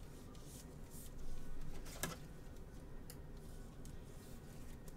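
Faint handling noise of trading cards and a clear plastic card holder: scattered light clicks and rustles, with one sharper click about two seconds in.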